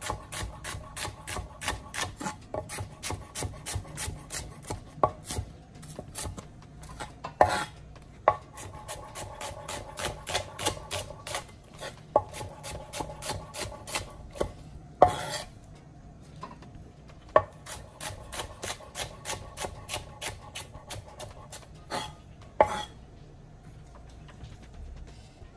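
Chef's knife slicing an onion on a wooden cutting board: runs of quick blade taps against the board, about three a second, broken by short pauses, with a few louder knocks.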